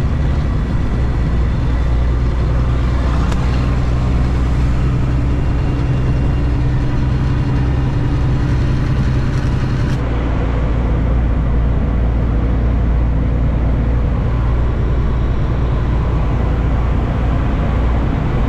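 International ProStar semi-truck's diesel engine running steadily on the road, heard from inside the cab with tyre and road noise. The engine tone changes slightly about halfway through.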